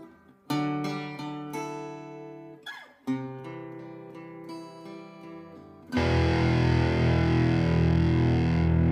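Acoustic guitar chords played one at a time and left to ring out, a second or so apart. About six seconds in, a loud, dense stoner-rock band sound with heavy guitars and bass cuts in suddenly and holds.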